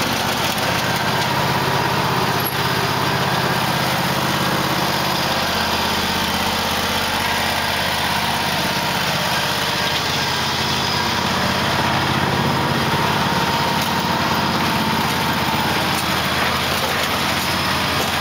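Small gasoline engine running steadily, its pitch shifting slightly about five seconds in.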